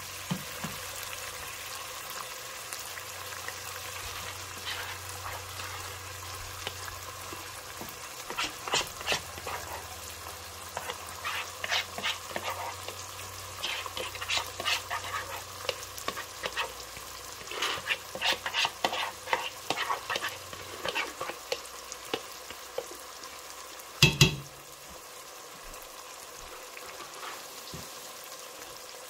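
Sliced onions sizzling in hot oil and liquid in a pot, with a run of crackling pops through the middle. One sharp knock sounds near the end.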